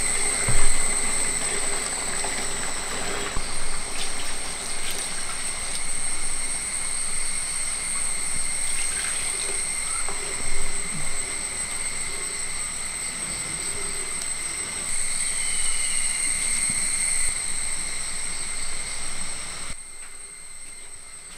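Jackfruit payasam simmering in a large metal pan over a wood fire while a flat spatula stirs and scrapes through it. Coconut milk is poured in partway through. A steady high-pitched whine runs underneath, and there is one louder knock about half a second in.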